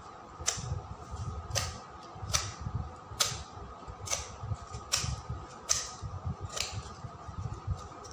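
Sandpaper scraping the edge of an MDF chopping board, trimming off excess decoupage tissue paper. Eight short, evenly paced strokes come about one every 0.8 seconds.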